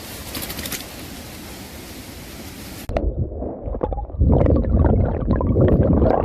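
Water: a steady rushing hiss like flowing water, then after an abrupt cut about three seconds in, louder close-up gurgling and sloshing, heaviest in the low end.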